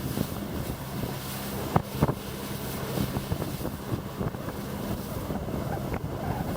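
Boat engine running steadily under way, with wind buffeting the microphone; two sharp knocks about two seconds in.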